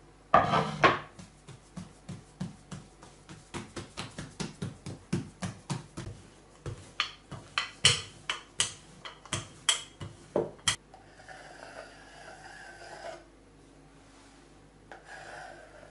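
Wooden rolling pin rolling out a stack of layered dough on a wooden table, in repeated back-and-forth strokes about twice a second, after a loud knock at the start as the dough is set down. Near the end, a quieter, drawn-out scraping as a knife cuts through the rolled dough.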